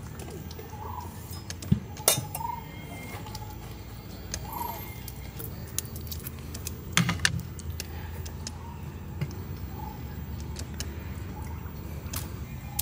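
Kitchen scissors snipping through raw white shrimp: a few separate sharp snips, two close together about two seconds in, a cluster about seven seconds in and one near the end, over a low steady background hum.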